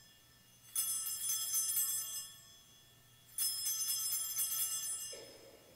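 Altar bells (Sanctus bells), a cluster of small bells shaken in two bright jangling rings of about a second and a half each, one starting just under a second in and one about three and a half seconds in. They mark the elevation of the host at the consecration.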